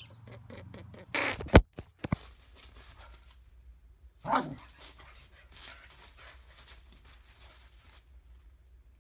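A dog gives one short whine that falls steeply in pitch about four seconds in, followed by light scuffing noises. Before it, a brief rustle ends in a sharp knock about a second and a half in, the loudest sound.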